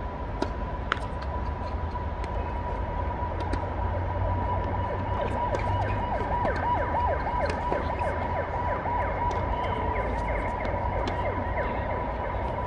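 Two sharp tennis-ball strikes with a racket about half a second apart near the start, a serve and its return. Behind them runs a steady high whine with a fast run of short falling chirps, over a low wind rumble.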